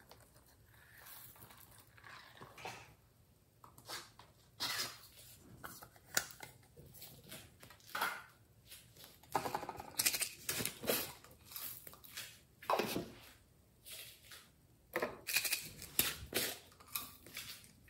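Hands handling small craft containers: a silicone zip pouch and a pineapple-shaped plastic pot being opened and turned over, making short scattered rustles, scrapes and clicks with pauses between.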